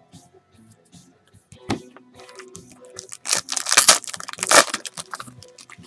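Foil trading-card pack wrapper crinkling and tearing open, a crackling that is loudest between about three and five seconds in.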